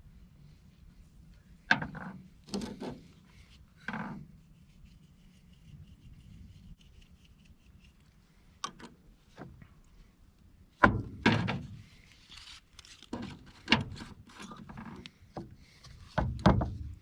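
Irregular knocks and short scrapes as plastic drain pipe pieces are handled and worked together during the repair, loudest in clusters about two, eleven and sixteen seconds in.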